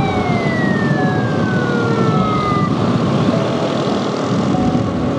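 Siren of a police escort pickup: one slow falling wail that dies away about two to three seconds in. Under it runs loud, steady wind and road noise.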